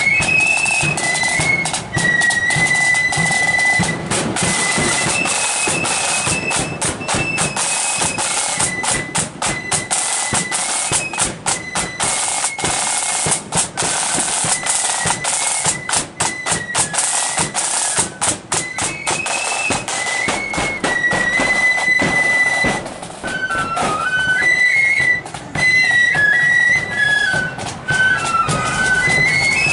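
Marching flute band playing: a flute melody over rapid side-drum beats and rolls. The drumming thins out about three-quarters of the way through, leaving the flutes more to the fore.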